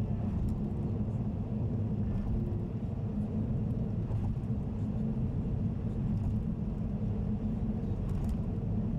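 Car cruising on an expressway: a steady, low rumble of road and engine noise.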